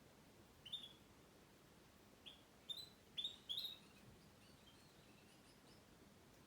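Wild canary giving short chirps: five clear ones in the first four seconds, the last few close together, then several fainter ones.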